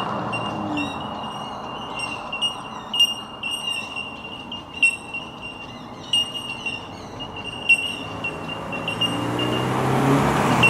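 Background chirping and ticking over a steady high-pitched whine, with the Subaru BRZ's flat-four engine and aftermarket titanium exhaust faintly building again near the end.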